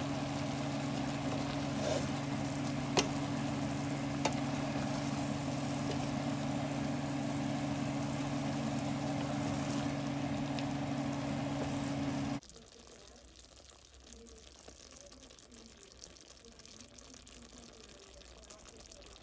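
Pot of pinakbet vegetables simmering and sizzling on the stove, a steady hiss over a steady low hum, with a few light clicks of utensils. About twelve seconds in it cuts off abruptly, leaving only a faint background.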